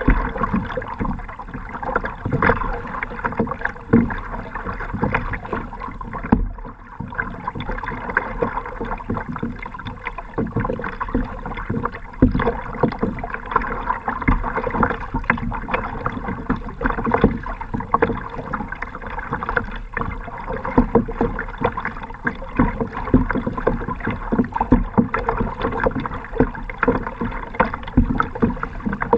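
Lake water splashing and slapping irregularly against the hull of a moving kayak in light chop.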